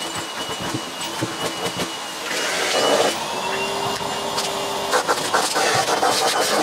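Cylinder vacuum cleaner running with a steady high whine while its hose nozzle is worked over the cloth bag of a vintage Hoover Junior to suck the dust off. The suction gets louder about two seconds in and takes on a low steady hum as the nozzle seals against the fabric. Scraping and rustling of the nozzle on the cloth follows near the end.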